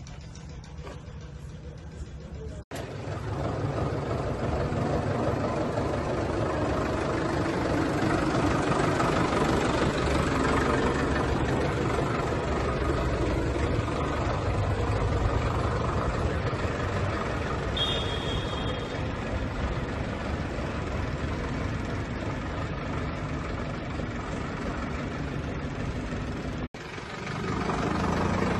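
Sonalika Tiger 90 hp tractor's diesel engine running steadily as the tractor is driven. It is quieter in the first few seconds, and louder from there on. A short high tone sounds about two-thirds of the way through.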